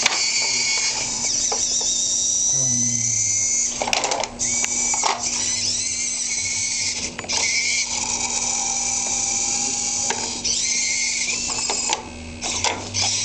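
The small electric servo motors and gears of a hobby-built block-handling robot whining as they run. The pitch slides up and down, and the whine comes in stretches of a few seconds that stop and start again.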